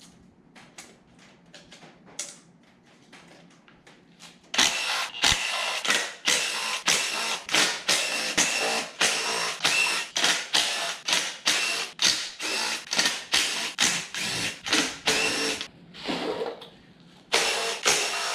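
Ratchet wrench being worked back and forth on engine bolts, clicking in a steady rhythm of about two strokes a second. It starts about four and a half seconds in after some faint handling clicks, pauses briefly near the end, then resumes.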